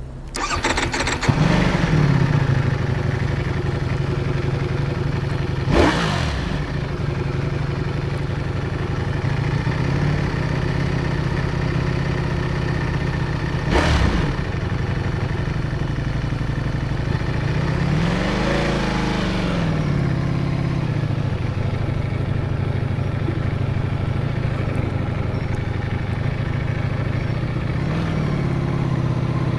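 Ducati Streetfighter V4S's 1103 cc V4 engine starting up and settling into a steady idle. Two short, sharp throttle blips come about 6 and 14 seconds in, a slower rev rises and falls at about 18 to 20 seconds, and a small rev comes near the end.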